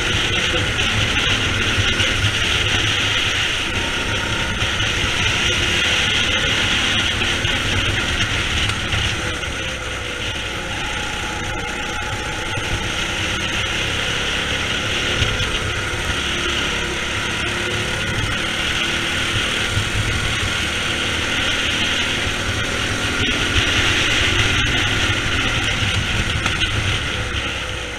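Go-kart engine at racing speed, heard from on board the kart, swelling and easing every few seconds as the throttle opens on the straights and lifts into corners.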